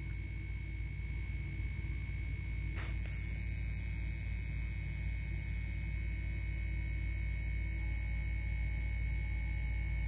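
Kenmore Elite linear refrigerator compressor, opened up, running with a steady hum and a high steady whine as its magnet drives the spring-mounted piston in and out very fast. It runs but pumps no gas, which the owner thinks is probably bad valves.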